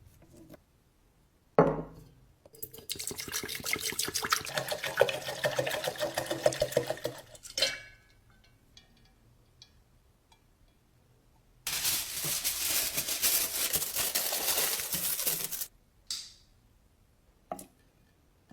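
A knock, then two spells of rapid scraping strokes lasting about four seconds each, the second starting about halfway through, and a short click near the end.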